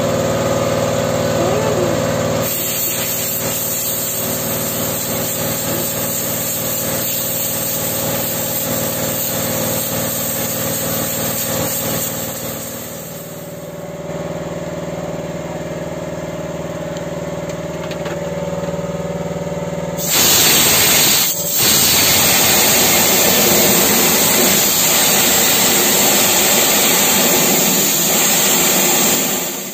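Engine-driven Shark air compressor running steadily, its engine note dropping about thirteen seconds in. Compressed air hisses from a blow gun, and from about twenty seconds in the air blast is much louder and steady as it blows dirt out of the diesel engine bay.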